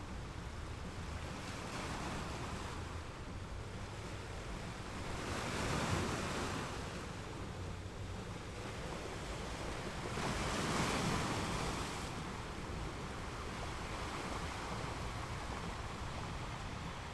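Sea waves breaking and washing up on a beach, two surges swelling and fading about six and eleven seconds in, over a steady low rumble.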